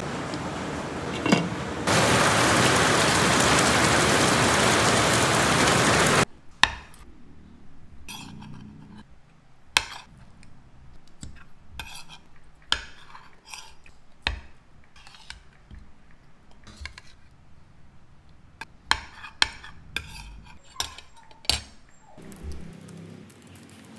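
A loud, steady rushing noise over a pot of soup on the stove, which stops suddenly about six seconds in. Then a metal spoon and fork clink sharply against plates and a bowl during a meal, about a dozen separate clinks at irregular intervals.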